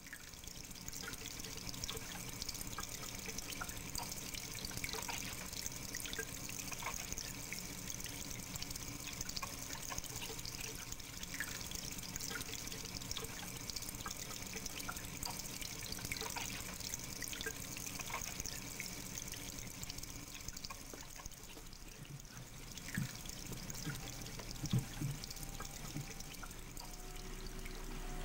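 Water trickling and dripping steadily through a sculptural installation's water canal, with scattered small drips and a couple of soft knocks near the end.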